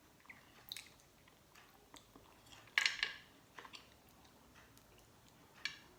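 Close-up mouth sounds of someone chewing chicken feet: scattered small clicks and smacks, with one louder wet smack about three seconds in.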